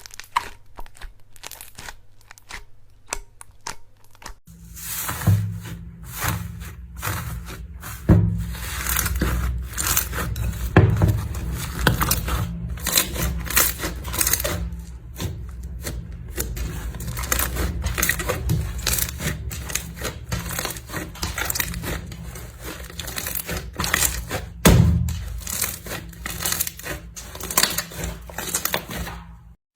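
Slime squeezed, poked and stretched by hand, giving a dense run of crackling, popping clicks. A steady low hum sits underneath from about four seconds in.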